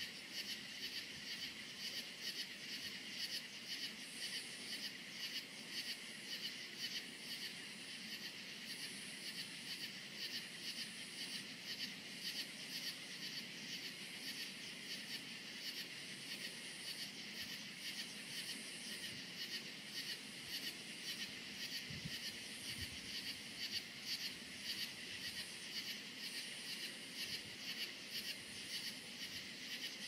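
A chorus of crickets chirping on a summer night, a dense run of fast, even pulses. A higher, thinner insect buzz comes and goes every few seconds over it.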